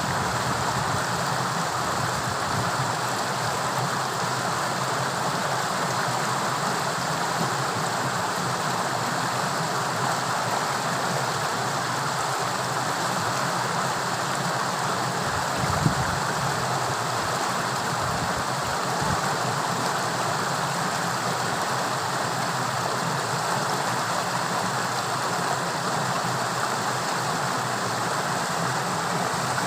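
Steady rush of fast-flowing torrential water, with one short knock about halfway through.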